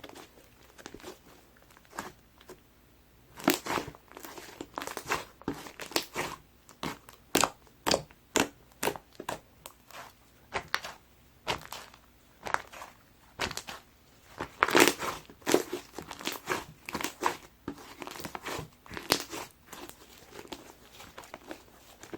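Sherbet slime with snow powder being squeezed and pressed by hand, giving irregular crackling pops and crunches. They are sparse at first, then come in dense runs.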